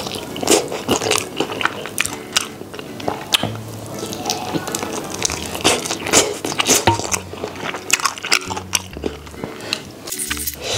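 Close-up eating sounds of spicy sauced fried chicken: repeated crisp bites and wet chewing as meat is pulled off the bone. Background music plays underneath.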